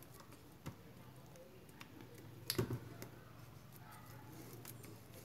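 Faint clicks and taps of enamelled copper winding wire and a wooden stick against an electric-motor stator as the coils are pressed into the slots, with one louder knock about two and a half seconds in.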